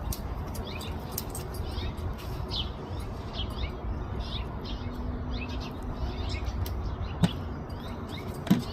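Small songbirds chirping over and over, quick short notes that slide down in pitch, over a steady low rumble. Two brief knocks sound near the end.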